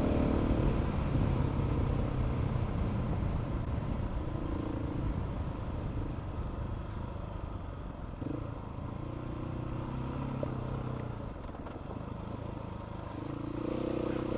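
Motorcycle engine running while riding a rough dirt track, the engine note rising and falling with the throttle.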